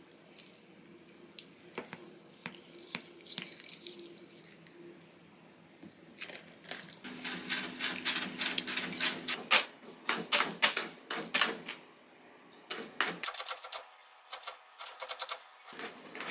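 A wooden spoon clinking and scraping against a glass bowl of yogurt and granola, becoming a dense run of scraping about six seconds in as the bowl is scraped clean. Near the end, a cat scratching in the litter of a top-entry litter box.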